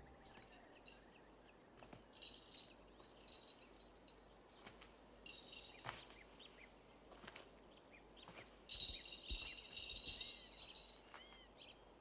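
Faint birdsong in short twittering bursts, with a few quick chirps near the end.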